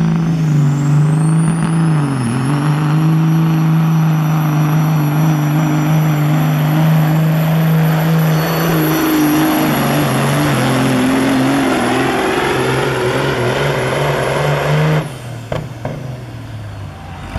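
Diesel semi truck engine under full throttle, pulling a weight-transfer sled down a dirt track. A high whistle rises over the first couple of seconds and then holds steady over the engine, which dips briefly about two seconds in. The engine drops off sharply about fifteen seconds in, at the end of the pull.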